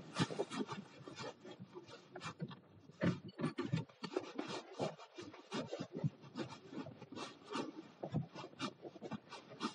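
Irregular rubbing and rustling noises with short scrapes and knocks, the handling noise of a phone audio recording.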